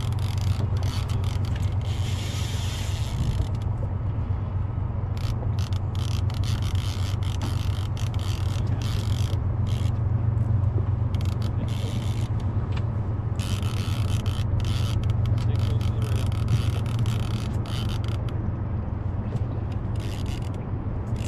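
Boat motor running with a steady low drone, overlaid by irregular scraping and clicking from the rod and reel as a chinook salmon is fought.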